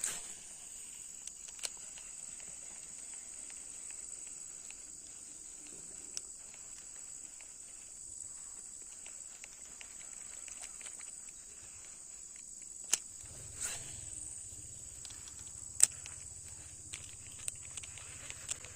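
Steady high-pitched trilling of crickets or similar insects, with scattered sharp clicks and ticks.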